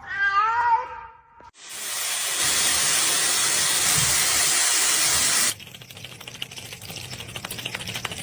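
A cat meows briefly with a rising pitch, then a loud, steady hiss runs for about four seconds and cuts off abruptly, followed by faint crackling.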